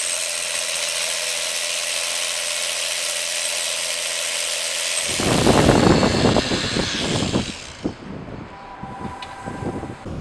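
Power drill with a 10 mm bit boring a fixing hole into concrete ground, running steadily for about five seconds. Then a louder, rougher stretch of drilling with rapid knocks, which fades out about two and a half seconds later.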